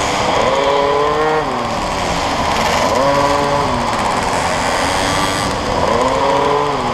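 Small motorcycle engines racing, the revs rising and dropping back three times as the bikes accelerate and ease off through the corners.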